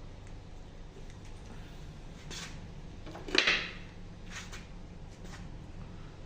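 Four short scrapes of parts being handled, the loudest a little past halfway, over a steady low hum.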